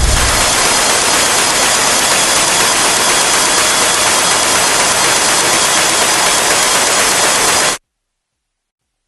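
A loud, steady wash of hissing noise from an electronic music track, the bass dropping away at the start. It cuts off suddenly to silence about a second before the end.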